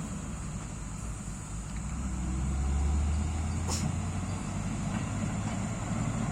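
Heavy diesel machinery running with a steady low rumble that swells about two to three seconds in. A single brief sharp click comes a little before the four-second mark.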